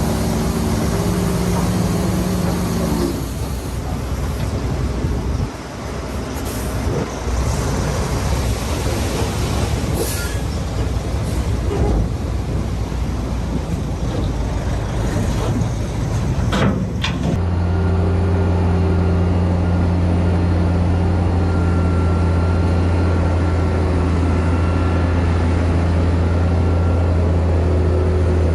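Heavy diesel engines of dump trucks and a bulldozer working, with a rough rumbling noise and scattered knocks. About 17 seconds in the sound switches abruptly to a steady, low engine drone.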